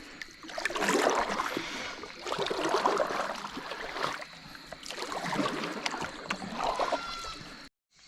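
Water splashing and sloshing in repeated surges about every second or so, which cut off suddenly near the end.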